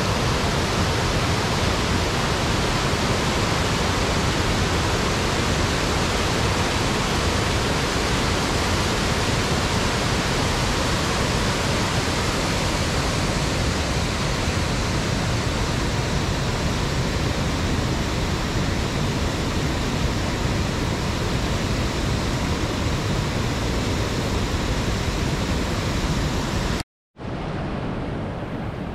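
Waterfall roaring: a loud, steady, dense rush of falling water. Near the end it breaks off for an instant and returns quieter and duller.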